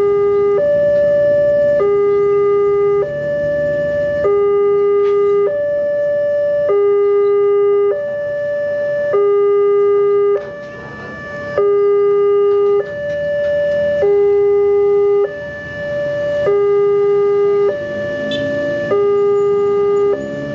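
Electronic level-crossing alarm from the Wantech warning unit's loudspeaker: a two-tone signal switching between a high and a low note about every half second, breaking off briefly twice. It sounds while the barrier is down and the red lamps flash, warning that a train is approaching.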